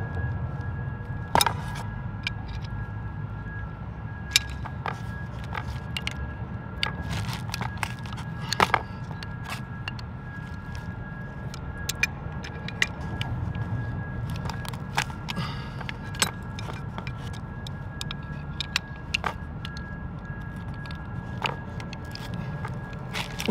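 Scattered metal clinks and scrapes of two wrenches on a swageless mechanical rigging terminal on stainless steel wire rope. The terminal is being tightened hard so the wire strands bend into place over its cone. A steady low hum runs underneath.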